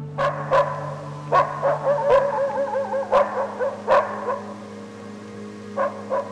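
German Shepherd dog barking: about six sharp barks in the first four seconds with a wavering whine between them, then two softer barks near the end. Soft background music runs underneath.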